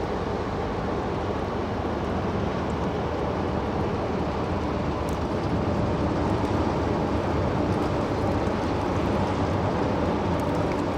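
A passing cargo ship's engine, a steady low rumble that grows slightly louder about halfway through.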